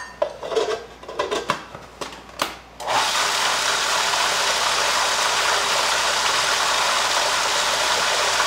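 Food processor's lid and feed-tube pusher knocked and clicked into place, then about three seconds in the motor starts and runs steadily, blending a serrano pepper and olive oil sauce.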